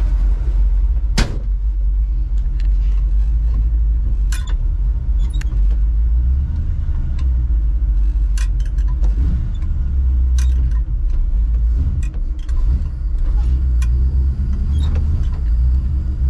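Chevrolet C10 pickup's engine, just converted from carburettor to EFI, idling smoothly and steadily, heard from inside the cab. A sharp knock about a second in and a few light clicks.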